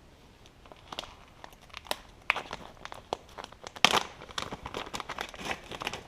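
Plastic packaging crinkling and rustling in irregular handfuls as it is opened, most likely the wrapping of a new fan power cord. It starts about a second in and gets busier, with the loudest crackle near the middle.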